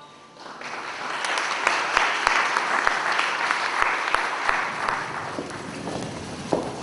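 Audience applauding. The clapping rises quickly about half a second in and thins out near the end.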